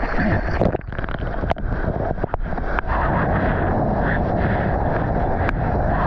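Water rushing and splashing around a surfboard and a waterproofed GoPro at water level as the surfer paddles into and rides a wave, with wind noise on the microphone. A few sharp knocks of water against the camera in the first seconds, then a steady, dense rush of water from about three seconds in.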